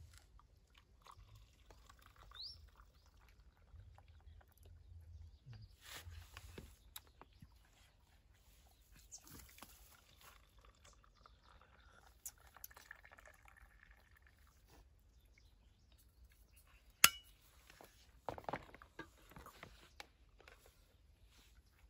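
Drink poured from a stainless-steel thermos flask into a mug, a soft quiet trickle, with one sharp clink late on followed by a few small knocks.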